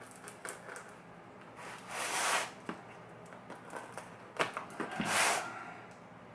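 A knife cutting the packing tape on a cardboard shipping box: two longer scraping cuts, about two and five seconds in, between scattered clicks and taps as the box and knife are handled.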